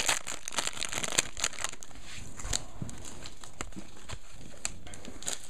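Crinkling and rustling of trading-card packs and cards being handled, a run of small crackles that is busiest in the first couple of seconds and then thins out.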